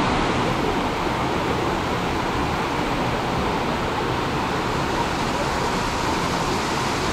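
Ravana Falls' water cascading over rock slabs: a steady, even rush of water.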